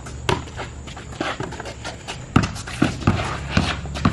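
Rubber ball bouncing on a concrete driveway and sneakers scuffing and stepping, a string of sharp thumps at irregular spacing, most of them in the second half.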